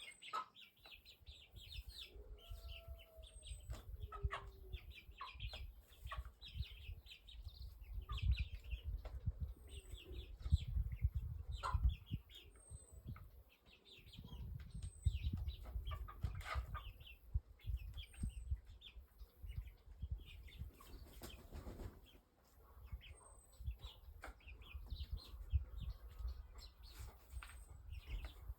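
Birds calling and chirping throughout, with a thin high note repeating every couple of seconds, over a low rumble of wind on the microphone.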